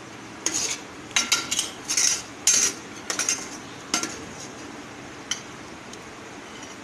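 A metal spoon scraping and clinking against a metal pot in a quick run of short strokes, then one lone tap, while chicken and potato masala is spooned onto the rice for biryani.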